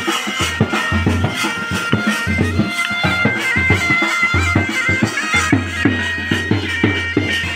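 Folk band music: a wind instrument playing a held, stepping melody over a steady drum beat.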